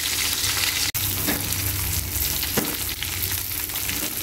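Whole tilapia frying in hot oil in an aluminium wok: a steady sizzle, with a momentary break about a second in.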